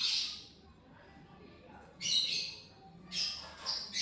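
Lovebirds giving shrill squawking calls: one right at the start, another about two seconds in, and a quick run of three short calls near the end.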